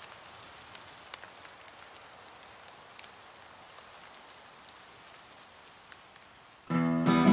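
Steady rain hiss with scattered drip ticks, then near the end an acoustic guitar starts strumming and the music comes in much louder.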